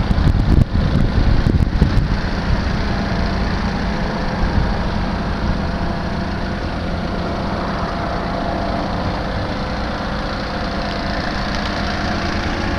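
Nissan Clipper kei truck's 660 cc three-cylinder engine running steadily, likely at idle, with a few light clicks in the first two seconds; the seller says the engine is in good condition.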